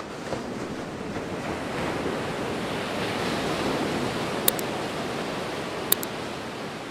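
Steady rushing ambience of ocean waves and wind. Two quick double mouse-click sound effects come about four and a half and six seconds in, as a subscribe button is clicked.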